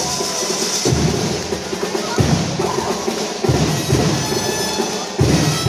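Drums beaten in a steady rhythm, about one heavy beat every second and a third, in a large echoing gym.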